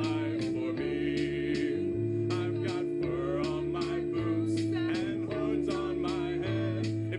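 Live band music with a singing voice, regular drum hits over held low notes.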